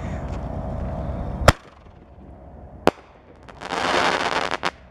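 Consumer artillery-shell firework: a sharp bang as the shell is lifted from its mortar tube about a second and a half in, a single sharp crack when the shell breaks about a second and a half later, then about a second of dense crackling from the crackling stars, ending in a couple of pops.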